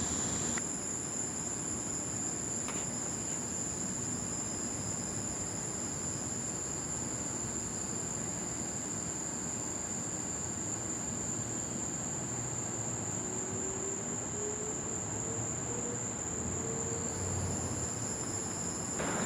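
Crickets trilling in one continuous high-pitched note over a steady background hiss.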